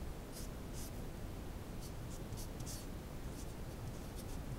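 Felt-tip marker writing on paper: short, high-pitched scratchy strokes as letters are written, a few per second with brief gaps between.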